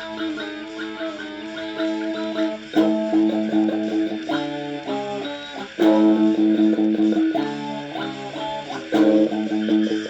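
Punk rock recording, instrumental: electric guitar strumming chords over bass, the chords changing every second or so, with louder hits about three seconds in, near the middle and near the end.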